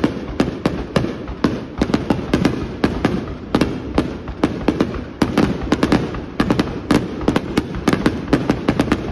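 Aerial fireworks shells bursting in quick, overlapping succession, a rapid string of sharp bangs, several each second.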